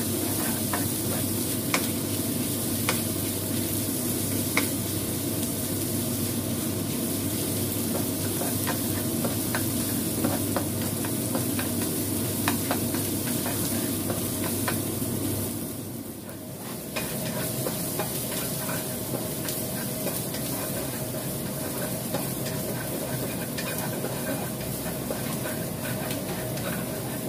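Chopped garlic and shallots sizzling in hot oil in a nonstick wok, stirred with a spatula that scrapes and taps against the pan. The sizzle dips briefly a little past halfway, then carries on.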